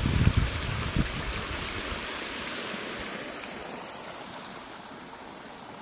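Wind buffeting the microphone with irregular low thumps for the first two seconds or so, over a steady rushing hiss that slowly fades.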